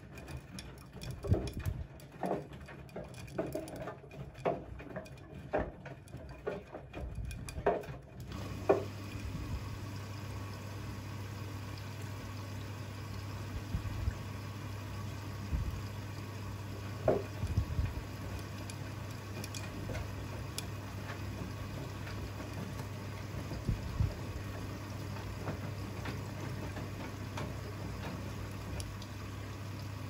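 Siemens front-loading washing machine filling with water and tumbling wet laundry in the drum: irregular splashes and knocks, then a steady low hum sets in about eight seconds in as water streams into the drum, with the odd knock after.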